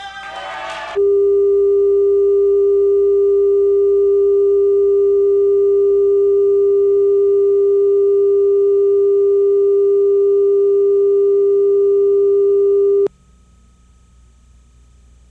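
Videotape line-up tone played with colour bars: a steady, loud, single-pitched test tone that starts about a second in and cuts off abruptly near the end, leaving a faint low hum.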